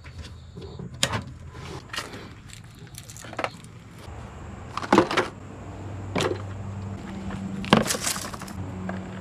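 A series of separate knocks and clatters as objects are handled and set down, the loudest about five and eight seconds in. A steady low hum comes in about six seconds in and rises to a higher pitch a second later.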